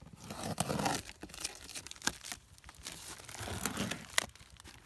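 Clear packing tape being torn off a cardboard box and the flaps pulled open: irregular crackling tears and cardboard rustling.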